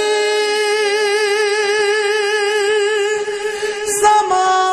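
Background music: a solo voice singing an Urdu devotional hamd in praise of God, holding one long note with vibrato for about four seconds, then moving to a new pitch near the end.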